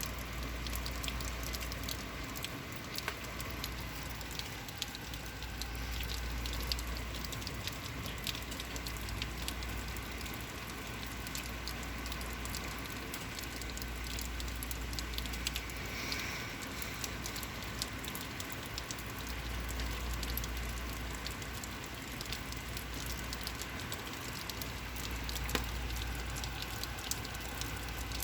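Heavy rain falling steadily, with a dense patter of close drop impacts. A low rumble swells and eases several times.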